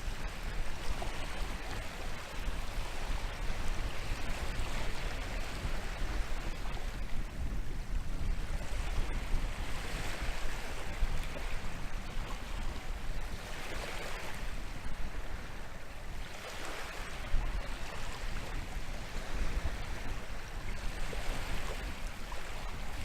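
Atlantic waves breaking and washing on the shore, rising in surges every few seconds, with a steady low wind rumble on the microphone.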